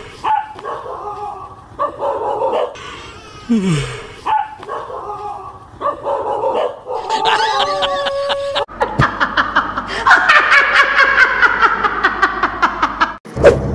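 A dog barking and yelping repeatedly, about one bark a second, at a stuffed toy tiger. About nine seconds in it gives way to a woman laughing loudly in a fast run of 'ha' bursts.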